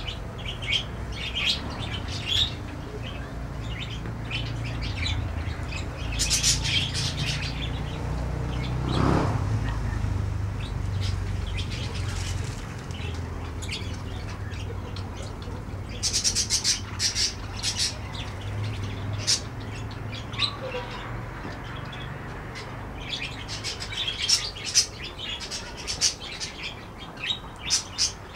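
Budgerigars chirping in short clustered bursts, several times with pauses between, over a steady low rumble.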